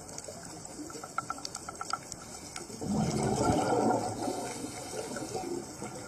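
Underwater scuba diver's exhaled bubbles: a loud rush of bubbles from the regulator about three seconds in, lasting about a second before fading, with light clicks and ticks before it.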